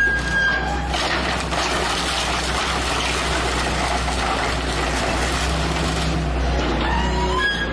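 Excavator's diesel engine running steadily under a constant hiss and crunch as its bucket and hydraulic thumb tear into a wood-frame house, with a few sharp cracks of breaking wood and siding near the start.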